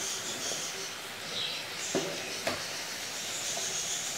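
Pepper vadai deep-frying in hot oil in an aluminium kadai, a steady sizzle. Two sharp knocks about half a second apart near the middle, from the slotted metal spatula striking the pan.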